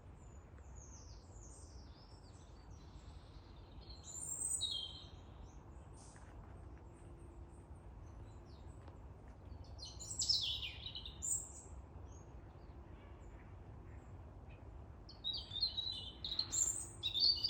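Wild birds calling in short, high bursts: a few calls about four seconds in, a falling call around ten seconds in, and a busier run of calls near the end, over a low steady background rumble.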